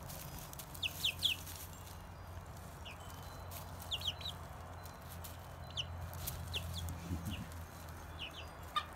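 Brown hens chirping and peeping in short high calls, often two or three in quick succession, over a low steady hum.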